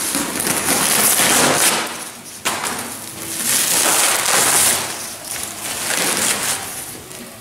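Corrugated cardboard packaging being cut with a knife and torn open by hand, in several rough tearing stretches, one starting abruptly about two and a half seconds in.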